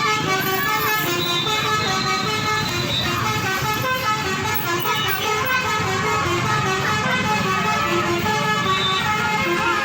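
Indonesian bus 'telolet' musical horns playing a tune of short notes that step from pitch to pitch and overlap.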